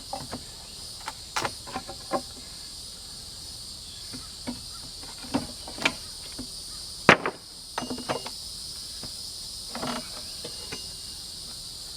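Wooden pallet being pried apart with a steel pallet-dismantling tool: a string of irregular sharp knocks and board cracks, the loudest about seven seconds in. Steady chirring of insects runs underneath.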